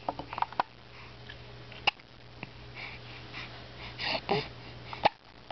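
A baby hiccuping: several short, sharp hiccups a second or more apart, the loudest about two seconds in and near the end, with a brief soft vocal sound about four seconds in.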